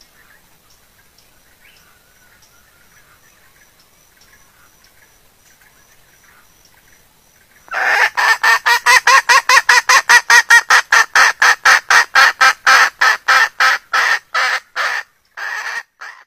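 Junglefowl hen giving a rapid cackling call, about five short notes a second: the in-heat call that summons a rooster. It starts loud about eight seconds in after a faint stretch, and thins out into broken notes near the end.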